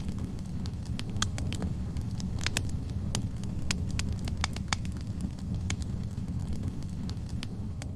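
Wood fire in a fireplace: logs burning with a steady low rumble and frequent sharp, irregular crackles and pops.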